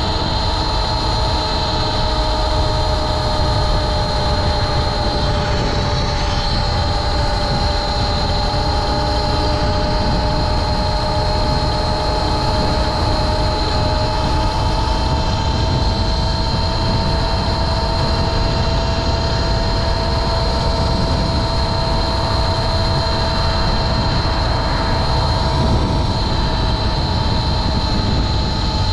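Home-built electric motorcycle's motor whining at a near-steady pitch while riding, over a heavy low rumble of wind and road noise.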